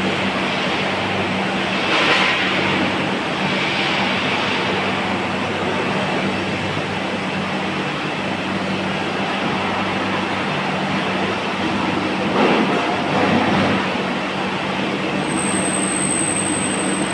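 Heavy lathe turning a steel rolling-mill roll: a steady machine hum under loud, broad mechanical noise, swelling briefly about two seconds in and again around twelve to thirteen seconds. A thin high whistle comes in near the end.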